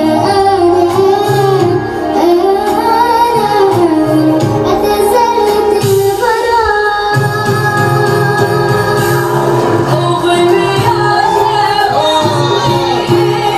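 A song: a solo voice singing a gliding melodic line over sustained instrumental accompaniment with a pulsing bass.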